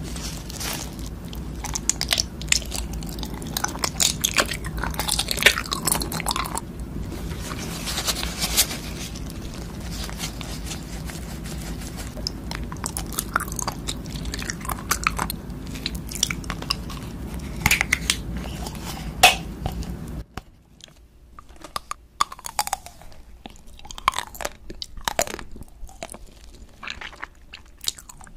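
Biting and chewing of jelly candies, many short mouth clicks over a low steady hum. About twenty seconds in, the hum cuts out and sparser bites and chewing of a chocolate-coated ice cream bar follow.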